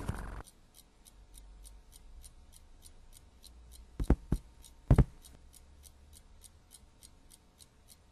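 Faint, even ticking like a clock, about four ticks a second, in a quiet room. Three short, sharp knocks come about four seconds in, and another about five seconds in.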